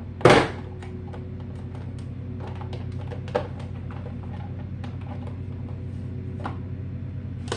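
A hand-pressed vegetable chopper clacking shut once through an onion, a sharp plastic clack, followed by a few faint light clicks of the chopper being handled, over a steady low hum.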